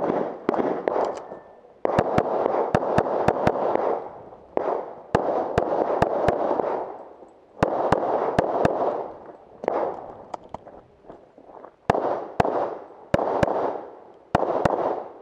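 Rapid pistol shots from a stainless semi-automatic competition pistol, fired in quick pairs and short strings of three to six shots with pauses between, each string echoing off the range berms.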